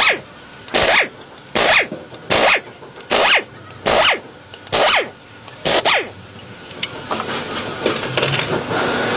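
Hand tool working on the car in about eight evenly paced rasping strokes, roughly one every 0.8 s, each ending in a short falling ring. After about six seconds the strokes give way to rougher, steadier scraping.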